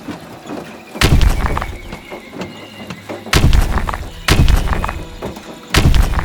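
Four heavy crashing thuds with deep low end, about a second in, at three seconds, at four seconds and near the end, each ringing out briefly over background music.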